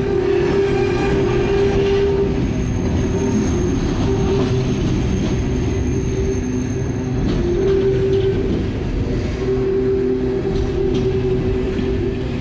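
CSX open hopper cars rolling past, steel wheels rumbling and clattering on the rails. A steady whining tone, typical of wheel squeal, swells and fades throughout, and a thin high squeal runs through the first half.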